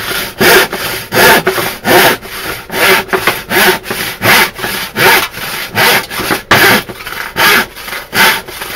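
Handsaw cutting through wood, with steady back-and-forth strokes at about two a second.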